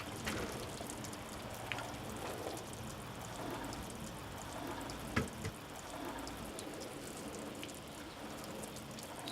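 Steady patter of falling water with scattered drips and ticks, and one sharper knock about five seconds in.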